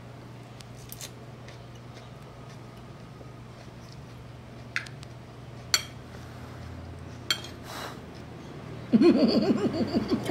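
A metal fork clinking a few times against a plate while eating, over a steady low hum. Near the end there is a short voice sound.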